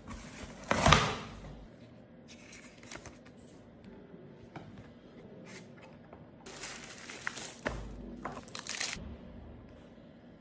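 Keyboard packaging being handled during unboxing: crinkling and rustling of wrapping with scattered clicks and knocks. The loudest is a sharp rustle about a second in, with another spell of rustling about seven to nine seconds in.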